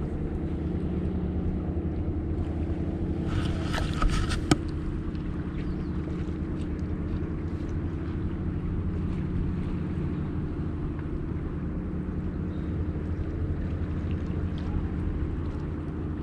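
A boat engine idling steadily with an even low hum. About four seconds in there is a short rattle of clicks, ending in one sharp click.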